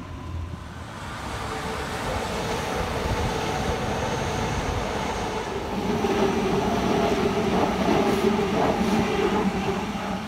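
Double-deck electric passenger train, a NSW TrainLink Oscar intercity set, running past and pulling away: a steady rumble of wheels on rail with an electric motor hum, loudest about six to nine seconds in and then easing.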